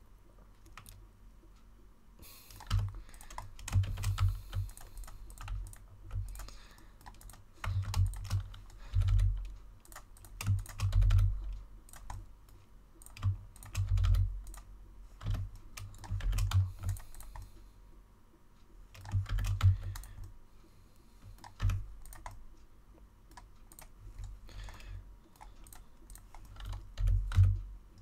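Computer keyboard keystrokes clicking in short irregular bursts with pauses between, each burst with dull low thumps.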